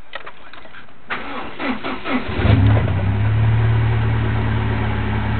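Chevrolet Cavalier Z24 engine being started: the starter cranks it for about a second, it catches about two and a half seconds in with a brief flare, then settles into a steady idle. The owner says this engine is knocking.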